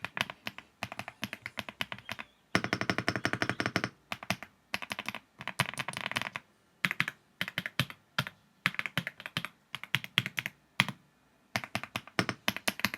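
Typing on an Elecfox Inky 75 mechanical keyboard with Matcha Buttermilk linear switches: fast runs of keystrokes in bursts, broken by short pauses. The keys have a buttery, poppy sound.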